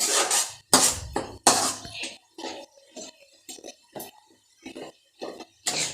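A spatula scraping and stirring in a cooking pan as peanuts fry in oil, in irregular strokes, the loudest ones in the first two seconds.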